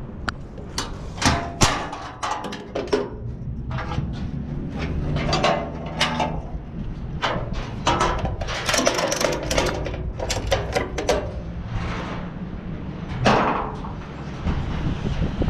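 Ratchet tie-down straps being worked on a steel car-carrier deck: irregular metallic clicks, clanks and knocks of the ratchet buckle and strap hooks against the perforated deck, over a steady low rumble.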